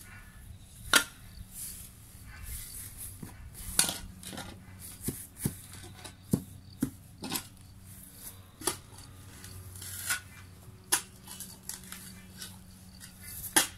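Steel shovel blade striking and scraping buried stones in the soil: sharp metallic clanks at irregular intervals, about a dozen in all.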